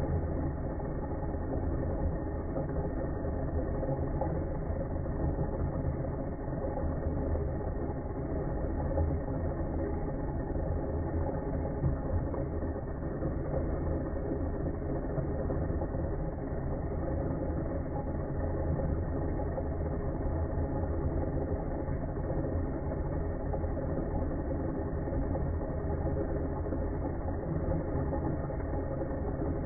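KitchenAid Magnetic Drive Blender running steadily, its motor driving the blades through a mix of chopped vanilla pods and liquid.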